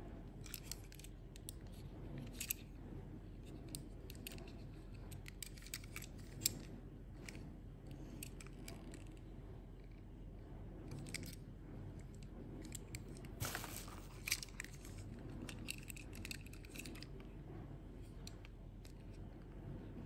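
Faint handling noise from a small die-cast toy truck being turned over in the fingers: scattered light clicks and taps, with a short burst of louder clicking and rustling a little over halfway through.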